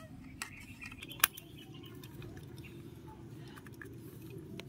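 Screwdriver tightening the screw of a plastic toy train's battery cover: faint scraping and small plastic clicks, with one sharp click about a second in.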